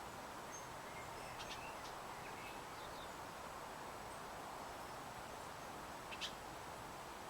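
A few faint, short, high bird chirps about a second in and a sharper one near the end, over a steady hiss.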